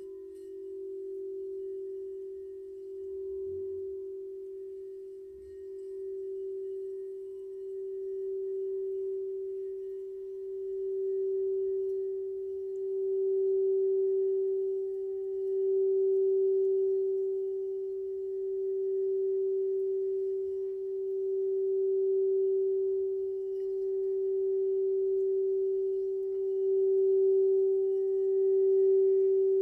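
Singing bowl held in one sustained, nearly pure tone, as when the rim is circled with a mallet. It swells and eases every couple of seconds and grows louder overall, with a fainter higher overtone coming in about twelve seconds in.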